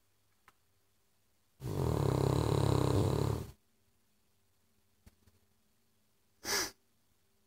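Cavalier King Charles spaniel snoring: one long, low, rattling snore about two seconds long, starting a couple of seconds in. A brief hiss comes near the end.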